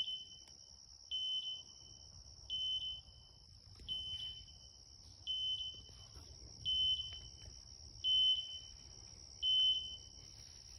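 English setter's beeper collar in point mode: a short high beep repeating about every second and a half, the signal that the dog has stopped and is holding a point. A steady high-pitched drone runs underneath.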